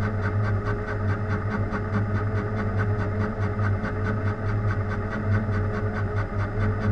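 Metalworking machine tool running at a steady speed: a constant motor hum with an even pulsing about five times a second.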